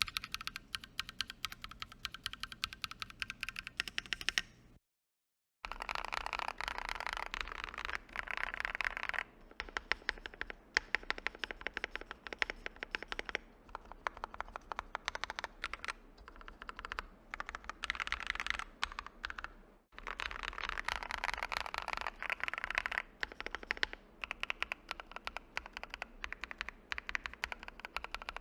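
Typing on a mechanical keyboard fitted with Akko CS Wine Red linear switches: quick runs of clacky keystrokes. The sound cuts out briefly about five seconds in, and the typing after that is on an FR4 plate, before it on an aluminium plate.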